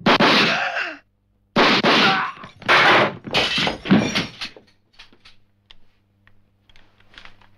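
Several loud, sharp bursts of gunfire in a small room, one just at the start and a cluster of short bursts after a brief gap. They give way to faint clicks and knocks.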